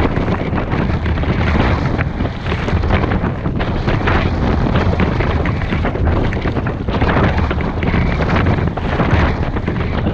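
Strong wind buffeting an action camera's microphone: a loud, steady rumbling rush, with waves and spray splashing against a kayak in rough, choppy water.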